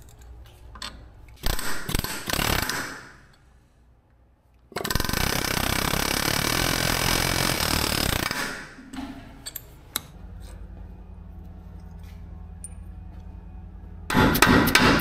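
Pneumatic impact wrench hammering on the bolts of a truck's front locking hub: two short bursts, then one long run of about three and a half seconds. A steady low hum follows, and loud metallic clatter starts near the end.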